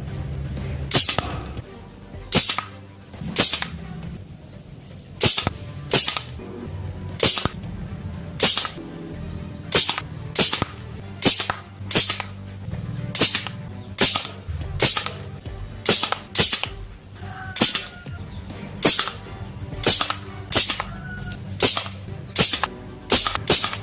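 PVC toy gun modelled on the FX Impact M3 air rifle firing repeatedly, about two dozen sharp shots roughly a second apart, some in quick pairs.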